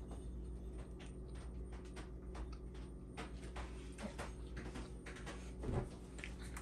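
A steady low hum under scattered light clicks and taps, with one short, louder low bump near the end.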